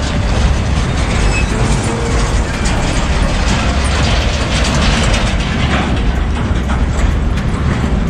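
Heavy diesel trucks driving past close by on a rough dirt road, a fuel tanker and then a tipper truck, with engine rumble and the rattling of their bodies over the bumps.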